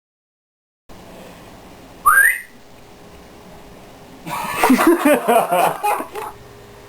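A short upward whistle, followed a couple of seconds later by about two seconds of a person's wordless, wavering vocal sounds. The first second is dead silence.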